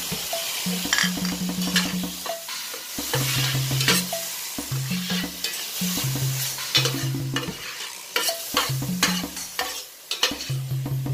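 Metal spatula scraping and clicking against a stainless steel frying pan as pieces of pork, onion and garlic are stirred, sizzling in a little oil.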